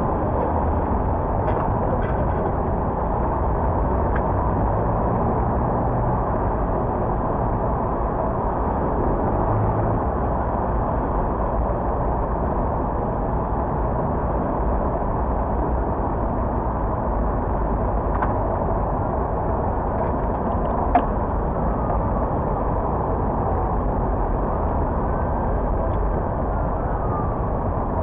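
Steady city traffic noise at a busy intersection: cars, vans and buses running and passing, with a few faint clicks and one short sharp click about 21 seconds in. Near the end a faint wavering tone comes in, the start of a distant emergency siren.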